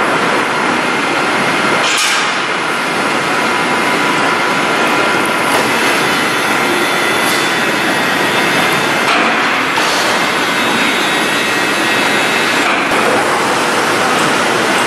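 Steady loud din of an MgO board production line, with a few sharp metallic knocks and clanks.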